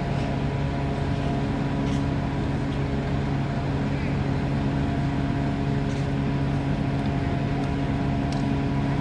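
Docked ship's diesel engine running with a steady, even hum that holds one pitch, with a few faint clicks.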